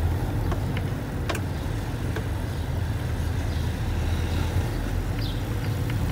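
Car engine idling with a steady low rumble between songs, with a few faint clicks.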